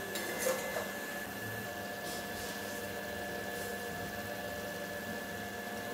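Metal spatula scraping lightly in an aluminium kadai of thick curry a couple of times in the first second, over a steady low hiss with a faint hum.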